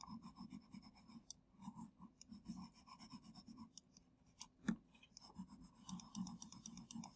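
Faint, irregular scratching and light clicks from a hand working a computer input device on a desk while eraser strokes are made, with one sharper click a little before five seconds in and a quick run of ticks near the end.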